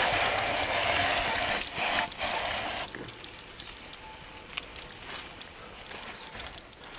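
Tropical jungle insects droning, a steady high-pitched chorus, with faint ticking in the second half. A louder rustling hiss covers the first three seconds and then stops.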